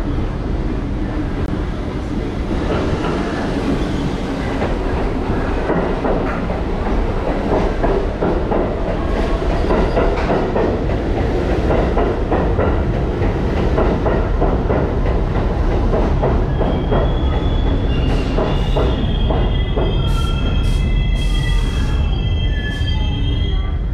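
New York City Subway 6 local train pulling into the station: a loud rumble with a rapid clatter of wheels over the rail joints. For the last several seconds a high, steady squeal of wheels and brakes sounds as it slows to a stop, with a few short hisses near the end.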